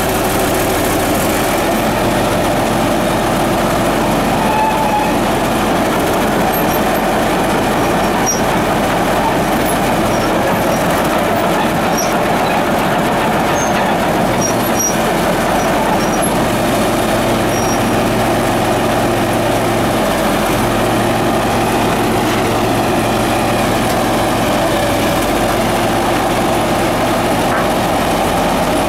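1977 Caterpillar D8K crawler dozer's six-cylinder diesel engine running steadily, a loud even drone that stays unchanged throughout.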